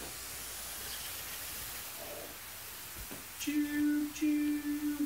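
A person humming two long, steady notes at one pitch, starting about three and a half seconds in, over a faint hiss.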